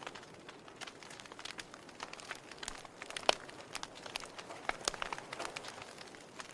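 Wood fire crackling in a fireplace: a soft hiss with irregular sharp pops and snaps, one louder pop a little over three seconds in.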